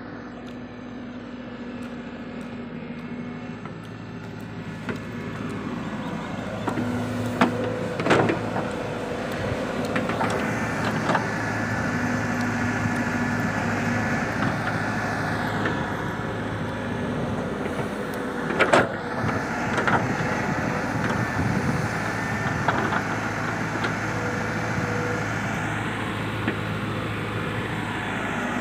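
Wheeled excavator's diesel engine running under working load while it digs sand. Its note swells and eases as the hydraulics work, and a few sharp knocks come from the machine, the loudest about eight and nineteen seconds in.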